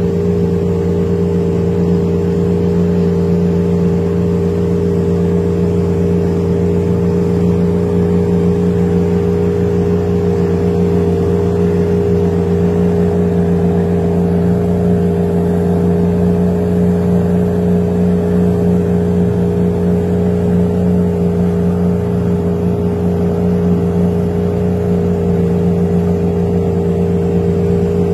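Boat diesel engine running steadily under way, a constant loud drone that holds the same pitch throughout.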